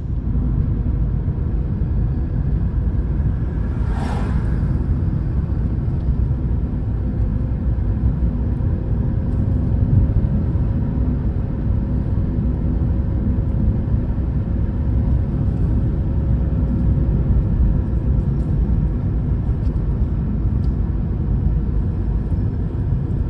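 Steady low rumble of a vehicle driving slowly, its engine and tyre noise running evenly throughout.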